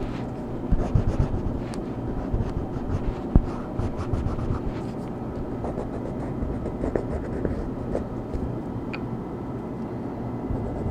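Coloring strokes scratching on paper, irregular and with a few sharp ticks, over a steady white-noise background.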